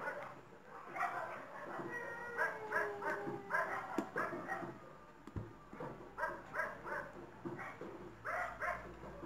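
A dog yipping and whimpering over and over, in short pitched bursts with a few drawn-out whines, and a couple of sharp clicks midway.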